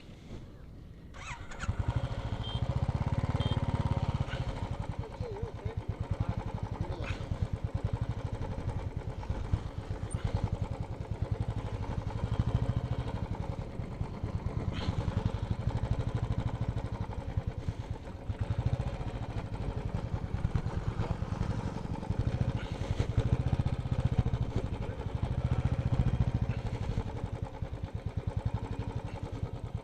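Motorcycle engine running. It comes in suddenly about a second and a half in, then keeps a steady low note that swells and eases in loudness.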